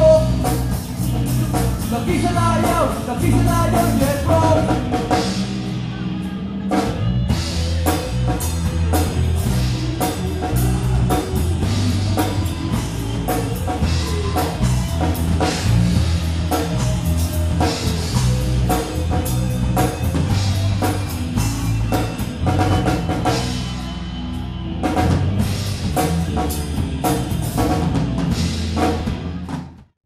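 Live band playing an instrumental passage: drum kit beating a steady rhythm under electric guitar and bass. The music cuts off abruptly near the end.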